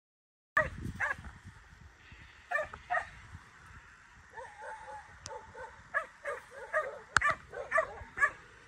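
Young working dog barking at sheep as it works them round a yard: a yard dog's free bark. The barks start about half a second in, scattered at first, then come two or three a second from about four seconds in. A single sharp click, the loudest sound, comes about seven seconds in.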